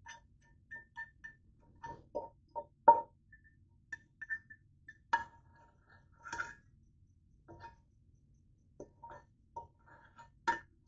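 Metal fork clinking and scraping against a cooking pot while scooping ramen noodles out of it: a string of irregular short clinks with a brief ring, the loudest about three seconds in.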